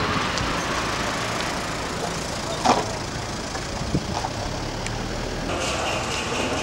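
Steady engine noise, like a motor vehicle idling, with two sharp knocks around the middle and a steady high tone joining near the end.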